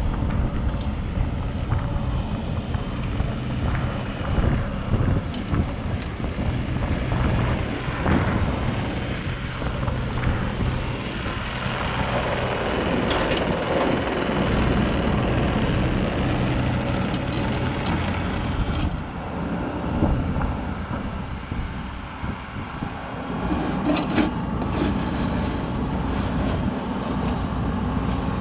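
Caterpillar 304E2 CR mini excavator's diesel engine running steadily while the boom and bucket are worked, with wind buffeting the microphone. Near the end the bucket digs into gravel.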